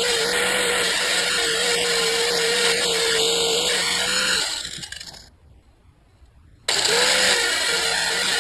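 Angle grinder running with a steady whine and grinding hiss as a small steel plate held in pliers is pressed to the disc to strip its paint. About four and a half seconds in, it winds down and falls quiet, then starts again abruptly about two seconds later.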